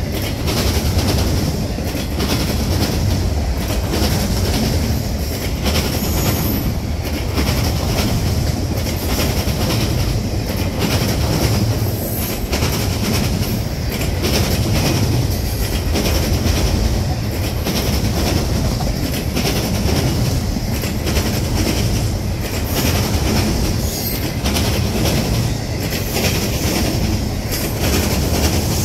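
Freight train of autorack cars rolling past at close range: a steady rumble of steel wheels on rail, with repeated clicks as the wheels cross rail joints and brief high wheel squeals now and then.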